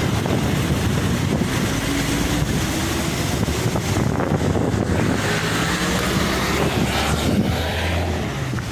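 Heavy diesel dump truck engine running with a steady low rumble, wind buffeting the microphone over it.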